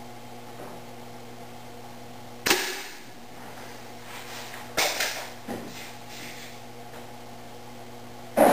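Three sharp cracks from a Crosman Phantom .177 break-barrel air rifle shooting a group of pellets at a paper target. The first comes about two and a half seconds in, the second about two seconds later, and the third near the end. Under them runs a steady low hum.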